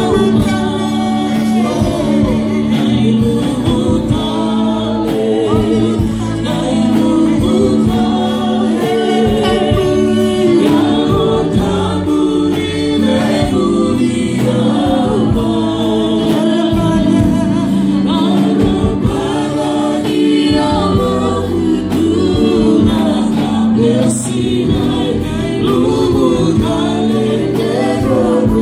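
Live gospel worship singing: several voices sing through microphones over a band, with a drum kit keeping a steady beat.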